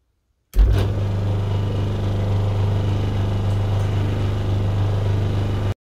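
Restored vintage Metropolitan Vickers bench grinder's electric motor switched on and running steadily with a strong low hum. It starts suddenly about half a second in and cuts off suddenly near the end.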